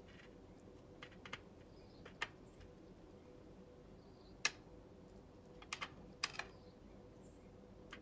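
Metal kitchen tongs clicking and tapping against stainless steel bowls as chicken pieces are turned in flour. The clicks are sharp and irregular, a handful in all, the loudest about four and a half seconds in and a quick cluster around six seconds.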